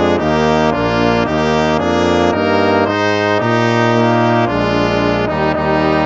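Instrumental hymn played by brass instruments in full chords, each chord held and then moving to the next about every half second.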